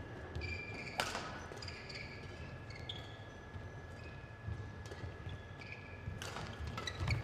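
Badminton shoes squeaking on the court mat, with a sharp racket hit on a shuttlecock about a second in and a few more strikes near the end as a rally starts. A faint steady high whine runs underneath.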